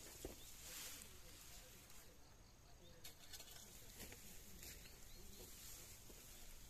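Near silence, with a few faint ticks and rustles from a smouldering heap of dry cut weeds and grass that has not yet caught properly.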